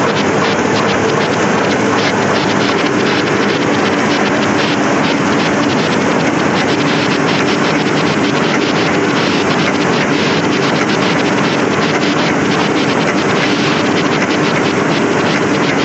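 Heidelberg Speedmaster XL 105 six-unit sheetfed offset press running: a loud, steady mechanical din with a faint low hum.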